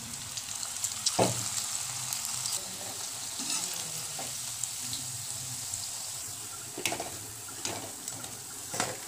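Spinach and potato pakoras sizzling steadily as they deep-fry in hot oil in a kadhai, with a few sharp knocks of utensils against the pan.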